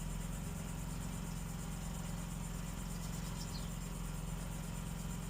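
Steady low hum with crickets chirring in the background, no tool running.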